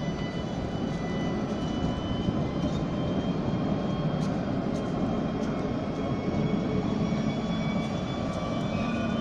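Alstom Citadis tram passing at close range: a steady rumble of its wheels on the rails with thin, high electric whines from its traction equipment.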